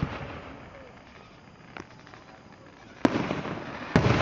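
Aerial fireworks bursting overhead. A bang comes right at the start, a faint crack about two seconds in, then two loud bangs about a second apart near the end, each dying away slowly.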